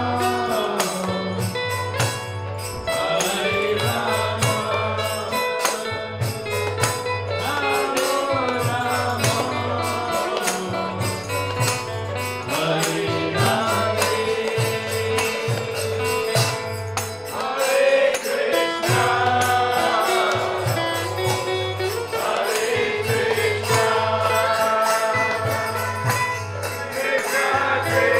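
Kirtan: a group sings a devotional mantra, with jingling hand percussion and a repeating low drum beat keeping the rhythm.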